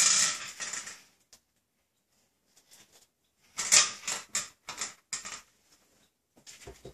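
A small nut clattering and skittering in a porcelain bathroom sink as a cat bats it about: a clatter at the start, a run of quick rattles midway, and a few light ticks near the end.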